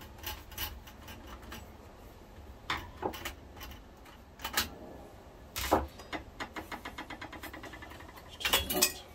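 Small metallic clicks and knocks from a screwdriver and a sheet-metal cover plate being worked loose and lifted off a 1982 Panasonic NV-366 VCR's tape mechanism. There is a quick, even run of small ticks about two-thirds of the way through, and a short cluster of knocks near the end.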